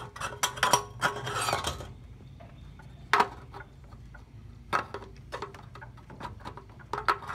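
Metal fuel strainer scraping down into a motorcycle fuel tank's filler neck, then the metal filler cap being fitted and turned, with a few sharp metal-on-metal clicks and scrapes. The source is a 1952 Zündapp.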